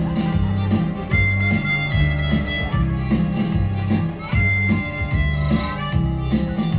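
Harmonica playing held notes and short phrases over backing music with a steady, stepping bass line.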